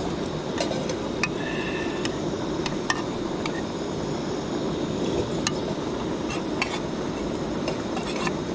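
Steady rushing of a mountain stream, with a few light clinks of metal mess tins and a spoon scattered through it.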